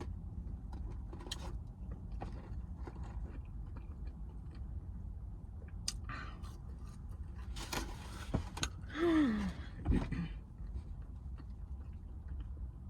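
Close-up chewing and mouth sounds of someone eating, over a steady low hum. About eight seconds in comes a loud rush of breath, then a short voiced sound that falls in pitch.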